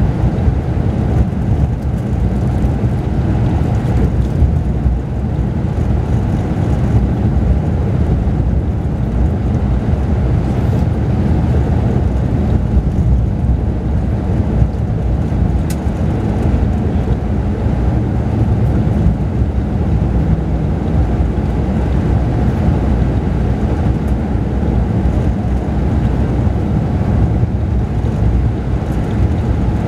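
Mercedes-Benz O-500RSD double-decker coach running at a steady speed, heard from inside the upper-deck cabin as a steady low rumble of engine and road noise.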